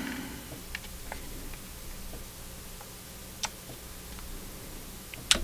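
Sparse small clicks and taps from handling a partly disassembled Canon 60D DSLR body, with one sharper click about three and a half seconds in and a couple more near the end.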